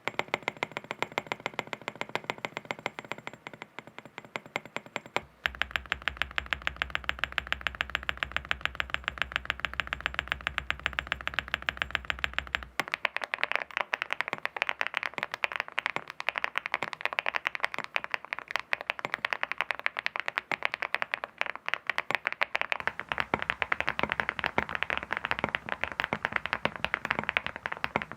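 Fast typing on a mechanical keyboard fitted with full-metal copper keycaps: a rapid, continuous stream of keystroke clacks. The character of the clatter shifts about five seconds in and again about thirteen seconds in.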